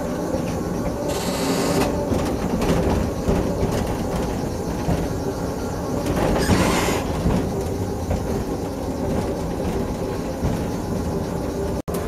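Ride-on mini train running along its track, heard from its driver's cab: a steady low rumble, with two short hisses about one second and six seconds in.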